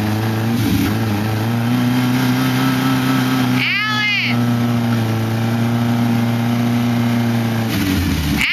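Lifted off-road pickup's engine held at steady high revs as the truck climbs onto a wrecked car, its pitch shifting near the end. A short high whine rises and falls about four seconds in and again at the very end.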